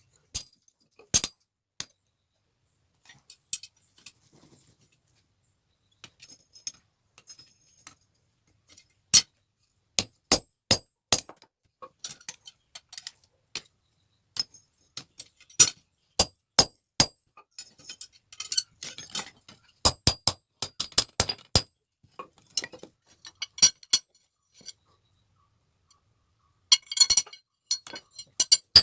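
Steel striking steel in sharp, ringing clinks, irregular and sometimes in quick runs of several blows a second, as in blacksmith's hammer and tong work on the metal.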